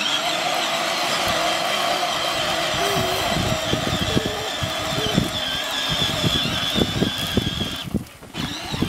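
Electric drive motor and gearbox of a battery-powered ride-on toy Jeep whining steadily as it drives over leaf-strewn grass, with irregular low knocks and crackles from the plastic wheels. The whine cuts off about eight seconds in.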